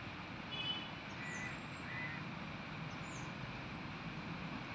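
Outdoor background with birds giving short, high, falling chirps about every two seconds over a steady hiss.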